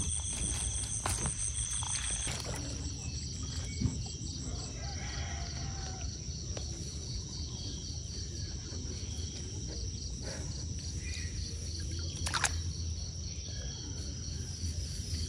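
Insects calling steadily outdoors: a high continuous buzz with a faster, evenly pulsed chirp beneath it, over a low rumble. Two sharp clicks, about four seconds in and again near twelve and a half seconds.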